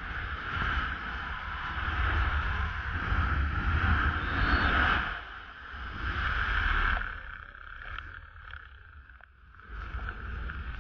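Wind rushing over a body-mounted action camera's microphone under a parachute canopy during the final descent to landing. It gusts louder and softer, easing off twice in the later seconds before swelling again near the end.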